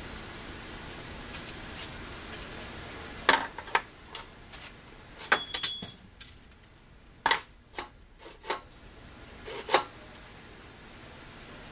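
A hard drive being handled and set into the metal chamber of a hard drive crusher: about a dozen sharp metallic clinks and knocks, beginning about three seconds in, one with a brief metallic ring. A steady faint hiss is heard before the clinks.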